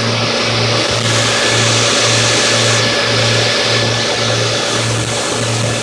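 Boat engine running steadily under way. Its low drone pulses about twice a second, over a steady hiss.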